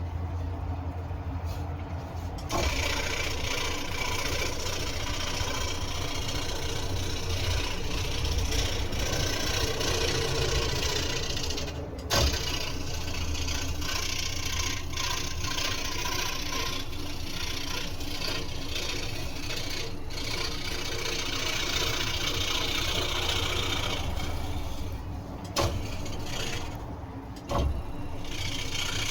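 Scroll saw running, its motor humming steadily while the blade cuts through wood with a rasping noise that starts about two seconds in. The cutting noise dips briefly once midway and twice near the end.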